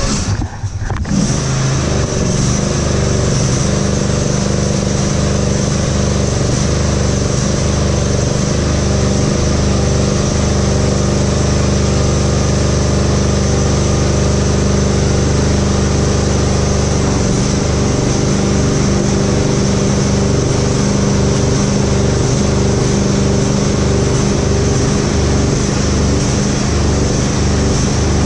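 A lawn tractor's 24 hp Briggs & Stratton V-twin engine catches about a second in and then runs steadily with a mild surge. The owner traces the surge to a carburetor fault: bad O-rings on its two jets.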